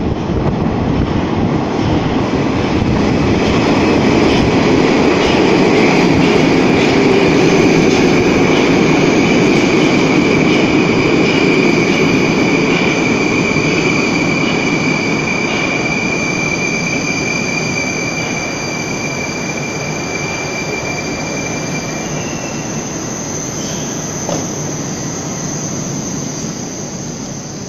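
An 81-760/761 'Oka' metro train pulls into the station and brakes to a stop: a loud, steady rush from the wheels and running gear, loudest as the cars pass, then easing off. A steady high whine runs over it and stops about three-quarters of the way through.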